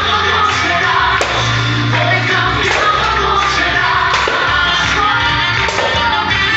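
Recorded Christian worship song with singing over full band backing, loud and steady, with sustained bass notes.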